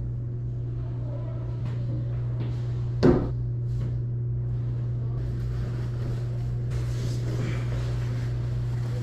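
A steady low hum, with one sharp knock about three seconds in. A steady hiss comes in from about five seconds on.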